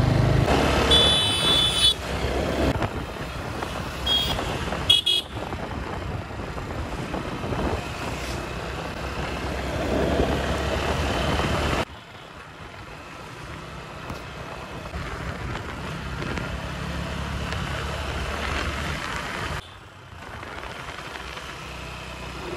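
Road traffic noise with vehicle horns honking: one longer toot about a second in, then two short toots around four to five seconds in. The steady road noise drops suddenly about twelve seconds in and again near the end.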